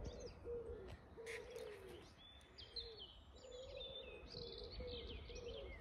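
Faint birdsong: a pigeon cooing in a run of low, arching notes, with small birds chirping and twittering higher up.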